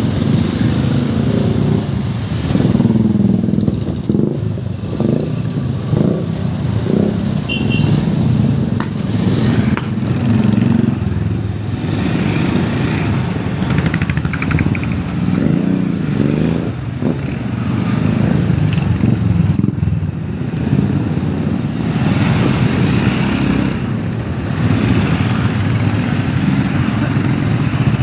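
A long procession of motorcycles, many of them Royal Enfields, riding past one after another, their engines swelling and fading as each bike goes by.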